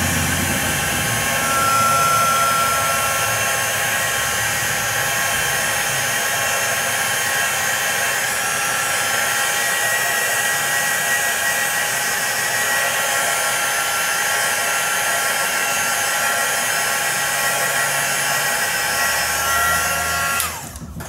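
Handheld craft heat gun blowing steadily, with the whine of its fan motor, aimed at a wet watercolor painting to dry the paint. It switches off shortly before the end.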